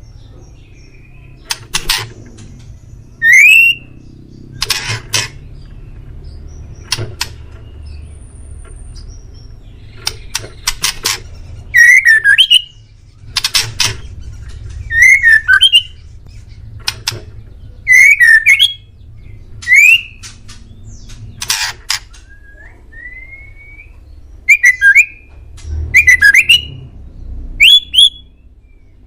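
White-rumped shama (murai batu) singing: short loud phrases of sharp notes and quick rising whistles, repeated every second or two over a low steady hum.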